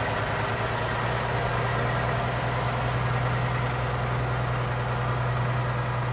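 Diesel engine of a semi tractor-trailer running steadily at low revs as the rig rolls slowly.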